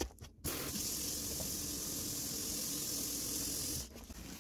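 Kitchen faucet running water into the sink and down the drain through a newly installed garbage disposal, a steady hiss that starts about half a second in and shuts off near the end. It is a leak test of the new disposal's connections.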